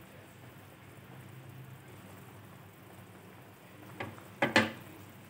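Pot of chicken soup bubbling at a boil, a steady soft patter. About four seconds in there is a light click, then two sharp knocks close together.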